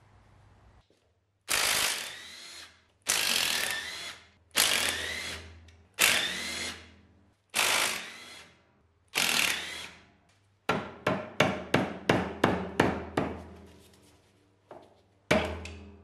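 A cordless drill-driver spinning bolts out of a Saab 900 five-speed gearbox casing: six short runs of the motor, each rising in pitch and then trailing off. After them comes a quick run of about a dozen sharp knocks, then two more knocks near the end, as a mallet taps a housing loose.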